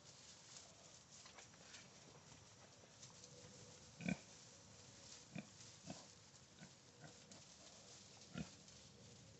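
Pigs giving a few short, soft grunts, about five in all, the loudest about four seconds in.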